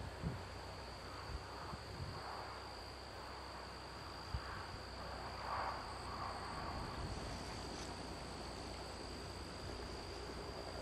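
Field insects singing in one steady, unbroken high-pitched drone, over a low outdoor rumble with a few soft thumps.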